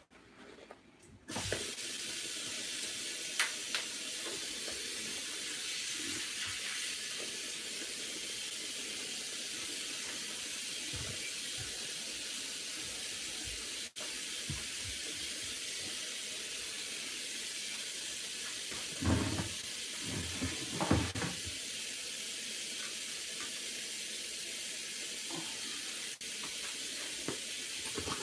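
Water running steadily from a kitchen tap, turned on about a second in, with a few knocks around it.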